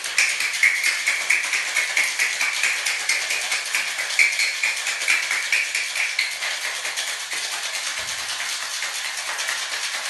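Ice rattling hard inside a metal cocktail shaker being shaken vigorously, a fast steady rhythm of about three strokes a second that grows a little quieter in the last few seconds.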